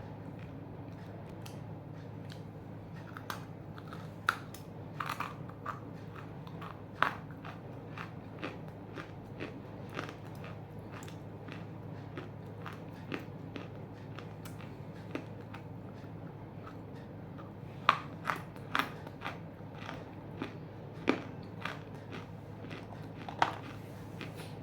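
Half-roasted Nakumatt clay chunks being bitten and chewed up close: irregular sharp crunches, in two busier spells with sparse softer chewing between, over a steady low hum.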